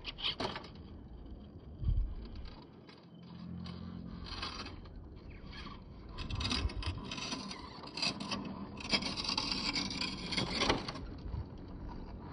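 RC4WD Trail Finder 2–based scale rock crawler climbing granite: its tyres scrape and grind on the rock and grit while the motor and gears whir. There is a thump about two seconds in, and a busier run of scraping from about six to eleven seconds.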